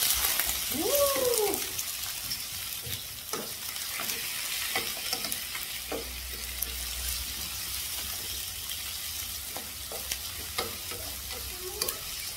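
Whole small cuttlefish sizzling in hot oil in a metal wok, just added to sautéed shallots, garlic, lemongrass, galangal and chili, while a spatula stirs them with repeated scrapes and knocks against the pan. About a second in, a brief tone rises and falls.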